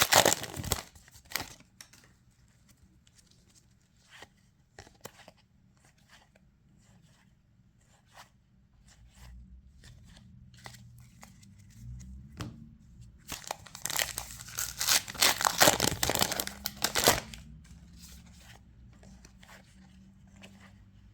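Booster pack wrapper being torn open and crinkled: a burst of tearing right at the start, a longer spell of tearing and crinkling lasting about four seconds in the second half, and light rustles and clicks of handling in between.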